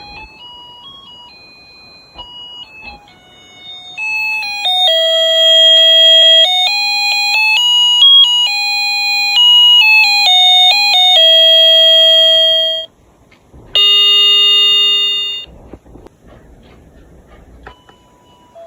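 Chime clock playing its chime tune in sustained bell-like notes that change about twice a second, then striking once, a tone that ends abruptly after about two seconds. Fainter chime notes can be heard before the tune and after the strike.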